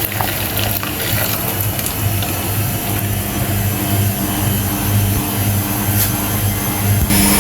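Washing machine running, a steady mechanical hum with a low throb pulsing about twice a second.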